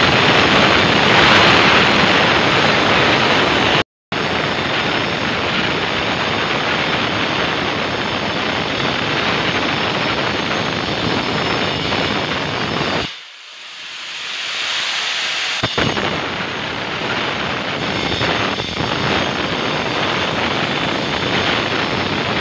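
Handheld power cutter, an angle grinder type, running hard as it cuts ceramic floor tiles, a loud, steady, harsh noise. It breaks off for an instant about four seconds in, then drops away about two-thirds of the way through and builds back up.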